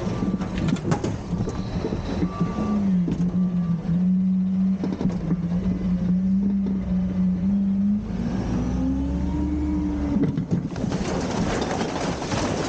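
Garbage truck's engine running with a steady hum, revving up about eight seconds in as the hydraulics work and dropping back two seconds later. A loud rushing noise follows near the end, with a few clanks at the start.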